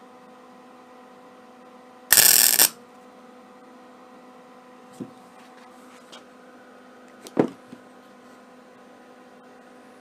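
MIG welder striking a short tack weld: one loud burst of arc crackle lasting about half a second, some two seconds in. A steady hum runs underneath, and two light knocks of handling metal parts follow later.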